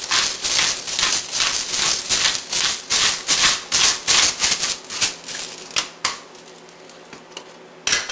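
Hand-twisted pepper grinder cracking peppercorns over the bowl: a run of gritty crunching grinds, about three a second, that stops around five or six seconds in. A single sharp knock comes near the end.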